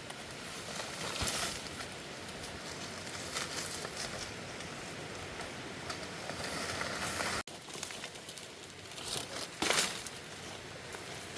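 Rustling and crinkling handling noises with a few louder brief swishes, broken by a sudden short dropout about seven seconds in.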